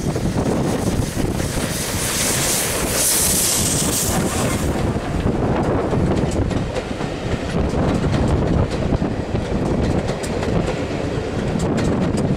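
Double-headed steam train, a GER J15 0-6-0 and a B12 4-6-0, passing directly below: a loud rushing hiss as the two locomotives go under, then the coaches roll by with their wheels clicking over the rail joints.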